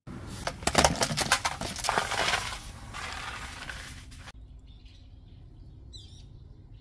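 Crackling, scraping rustle of dry fallen leaves and plastic dishes being pushed along pavement with a long-handled grabber, lasting about four seconds; then a quieter outdoor background with a brief bird chirp.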